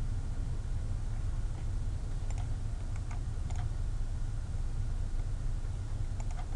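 Light clicks from computer input over a steady low hum: a small cluster around the middle and a couple more near the end.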